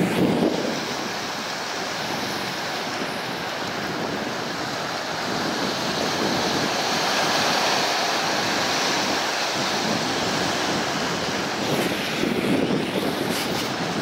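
Sea surf washing in over a rocky, boulder-strewn shore: a steady rush of breaking waves that swells louder about halfway through and again near the end.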